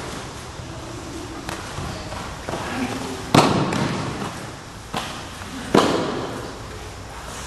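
Aikido breakfalls: a thrown partner hits the mat with a slap and thud three times, the loudest about three and a half seconds in and two more around five and six seconds, each echoing in the hall.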